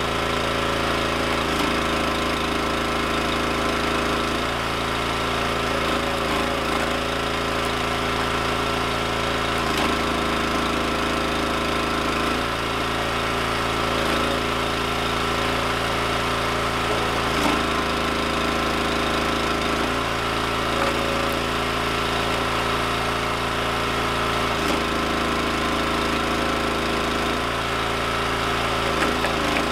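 Small gas engine of a Wolfe Ridge hydraulic log splitter running steadily. Its note shifts every few seconds as the ram is worked through maple and poplar rounds and back.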